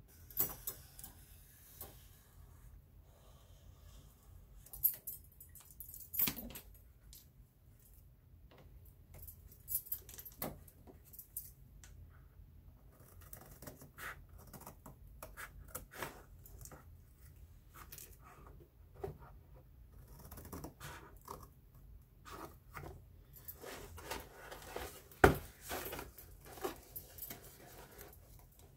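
Scissors snipping through white card stock, with paper and cardboard rustled and tapped as they are handled, and silver bangles on the wrists jangling. There are scattered light clicks throughout and one sharp knock near the end.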